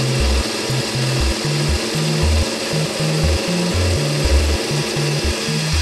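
Wabeco D6000E lathe running and cutting a taper on a metal bar, a steady machining noise. Background music with a rhythmic bass line plays over it and is the loudest part.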